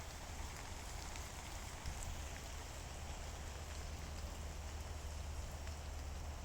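Steady rain falling, an even hiss with scattered faint drop ticks, over a steady low rumble.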